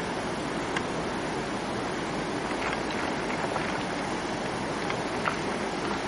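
Steady rush of a fast, rocky mountain river, with a few faint ticks.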